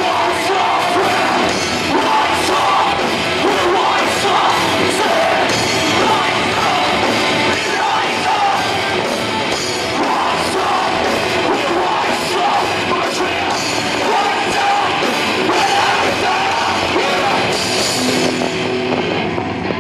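Live rock band playing loudly: a lead singer's vocals with backing vocals over electric guitars and a drum kit with steady cymbal and drum hits.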